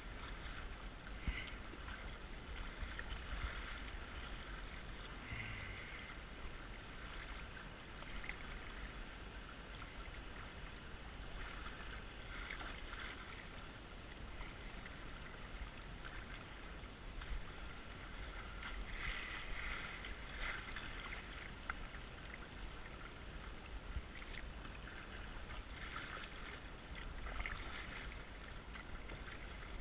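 Steady rush of fast, muddy creek water around a moving kayak, with paddle strokes splashing and swelling in the water every few seconds.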